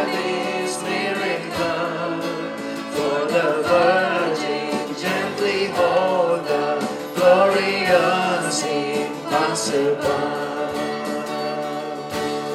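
Live worship music: a woman singing a slow melody in phrases, backed by acoustic guitar, keyboard and drums.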